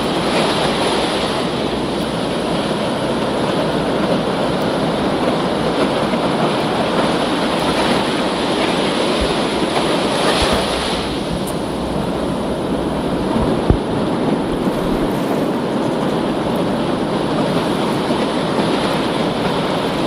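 Ocean surf washing continuously over rocks, a steady rushing hiss with a slight swell about ten seconds in.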